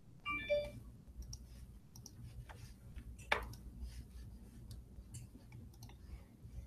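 Faint scattered clicks and taps over a low steady hum, the loudest a sharp click about three seconds in, with a brief tone near the start.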